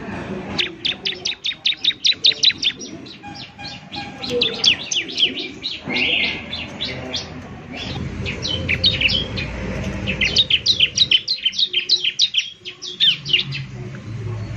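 Bar-winged prinia (ciblek) singing in rapid trains of sharp, high chirps. There are four runs of a few seconds each, with short breaks between them.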